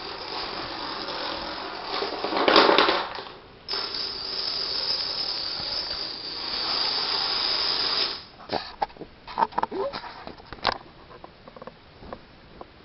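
Long runs of dominoes toppling in a fast, continuous clatter, loudest about two and a half seconds in. After about eight seconds the clatter breaks into scattered single clicks as the last dominoes fall.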